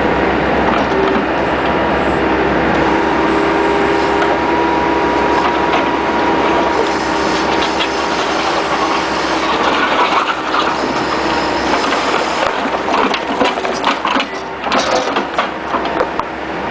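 Bobcat skid-steer loader with a 709 backhoe attachment working: the engine runs steadily with a held whine while the bucket scrapes and knocks against broken-up asphalt, with clatter and clanks from about seven seconds in.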